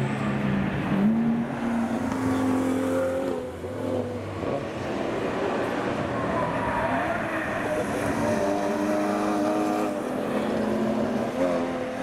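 Racing car engines running hard at speed, the pitch climbing and dropping again and again through gear changes.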